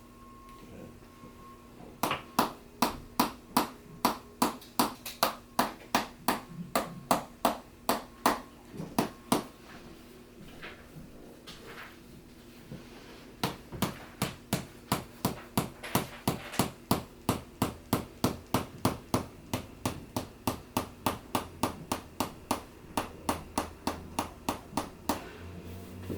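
Sharp, evenly spaced taps, about three a second, in two long runs with a pause of a few seconds between them.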